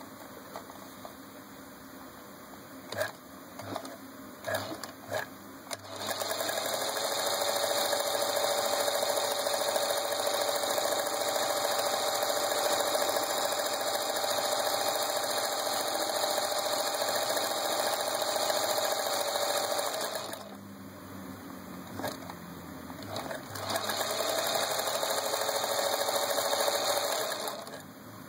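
Singer 221 Featherweight sewing machine stitching with a darning foot, running steadily in two spells: about fourteen seconds, then a pause with a few light clicks, then about four seconds more. A few clicks come before the first run starts.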